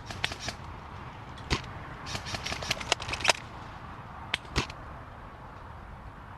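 Airsoft gunfire: scattered sharp cracks and clicks, single shots early and late with a quick irregular string of them between about two and three and a half seconds in.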